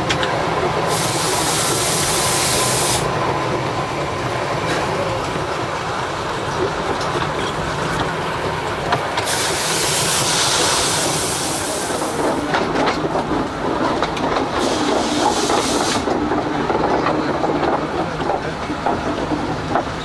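Cab noise of the narrow gauge steam locomotive "Milies" under way: a steady clatter of running gear and wheels on rail. Steam hisses loudly three times, about a second in, about nine seconds in and about fifteen seconds in.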